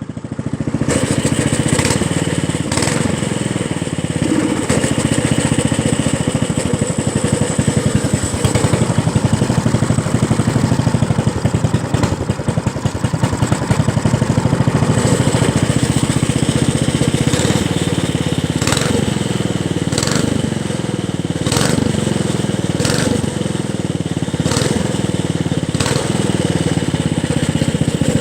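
Small gasoline engine running just after starting, revved up and down again and again, with occasional sharp clicks.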